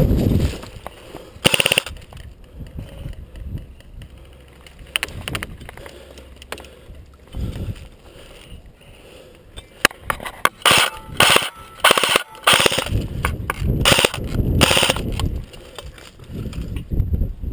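Airsoft guns firing in rapid bursts: one short burst about a second and a half in, then a run of bursts from about ten to fifteen seconds in.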